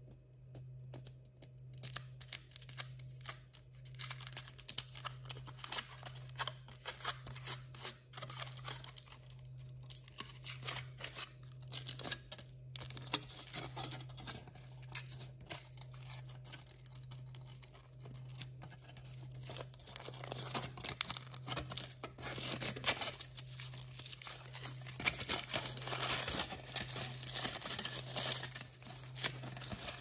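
Thin aluminium foil wrapper being peeled and crinkled by hand off a chocolate surprise egg: a dense run of small crackles and tearing sounds, busiest in the last third.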